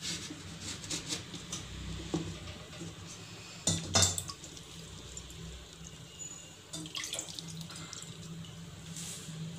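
Wet cloth being pressed and smoothed into an idli steamer plate, squelching and dripping water, with many small clicks and one sharp knock about four seconds in.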